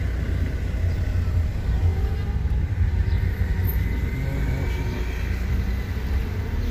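Steady low rumble of a car's engine and tyres heard from inside its cabin while it drives.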